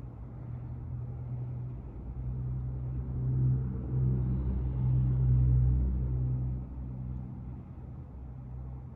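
A low engine rumble that swells for a few seconds and then fades, like a vehicle passing by.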